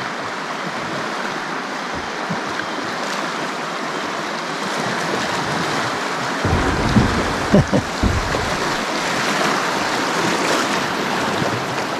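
River water rushing steadily over a shallow stretch. From about halfway a low rumble sets in underneath, with a few dull knocks.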